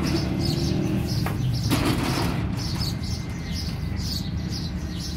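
Plastic bag rustling with two sharp clicks a little over a second in, over a steady low hum.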